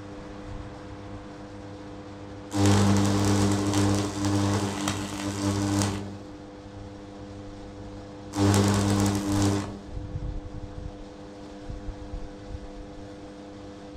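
DeWalt electric hammer running in two bursts, one of about three and a half seconds and a shorter one of just over a second, with a fast mechanical rattle over its motor. A steady hum runs underneath.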